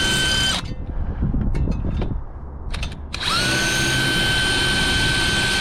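Power drill running at a steady pitch that stops about half a second in. A few light clicks follow, then the drill spins back up about three seconds in and runs steadily again, drilling pilot holes for the bird guard's screws.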